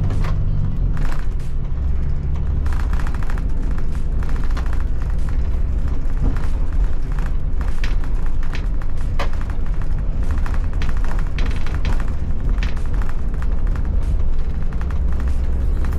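Iveco Irisbus Crossway bus on the move, heard from inside the cab: a steady low engine and road rumble, with frequent interior rattles and knocks from the cab.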